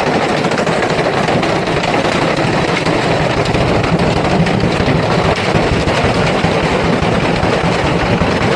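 Electrolux washing machine running with a brick loose in its drum, a loud continuous clattering and banging as the machine shakes itself apart.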